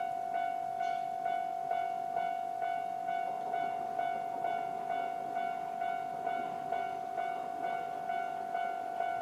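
Japanese railway level-crossing electronic warning bell ringing over and over at a little over two strikes a second. Each strike is one bright tone with overtones; this is the crossing's standard alarm sound.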